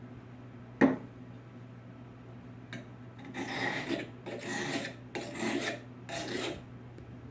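A single sharp knock, then a stainless carving knife being rough-sharpened: four rasping strokes of the blade across an abrasive sharpener, about one a second.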